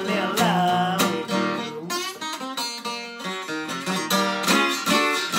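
Gibson acoustic guitar strummed in a rhythm-and-blues song, with a sung line near the start giving way to steady strumming.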